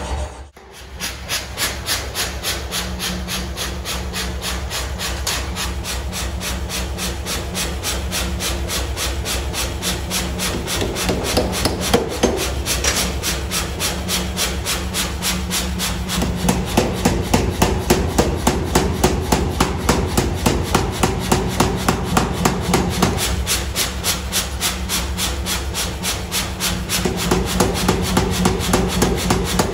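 Power hammer pounding red-hot steel in rapid, even blows, several a second, over the low hum of its motor. The blows grow heavier partway through and again near the end.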